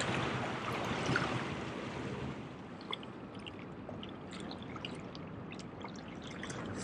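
Seawater washing and trickling among jetty rocks, louder for the first couple of seconds and then softer, with a few faint clicks scattered through it.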